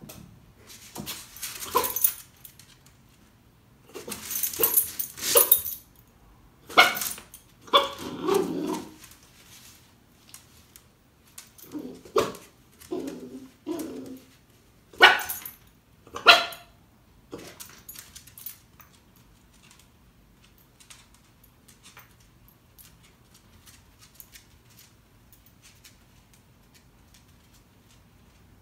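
Dachshund barking: short bouts of loud barks over roughly the first seventeen seconds, then quiet apart from faint clicks.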